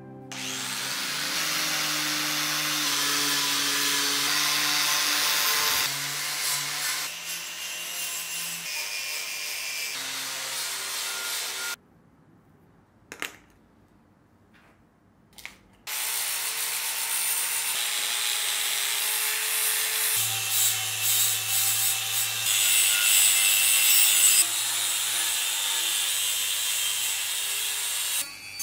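Angle grinder with a flap disc grinding rust off a steel knife blade: two long spells of steady abrasive grinding, broken by a silence of about four seconds with a couple of faint clicks. Soft background music runs underneath.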